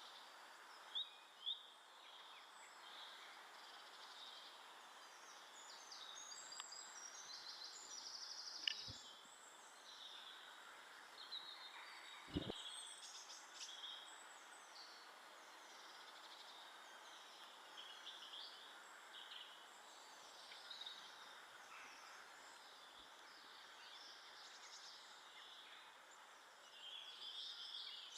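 Faint garden birdsong: many short chirps and trills from small birds throughout, over a steady background hiss, with two soft knocks about nine and twelve seconds in.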